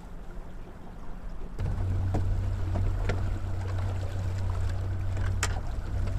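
Boat outboard motor running steadily at low speed, a loud low hum that comes in suddenly about a second and a half in, with a few sharp knocks, the loudest near the end.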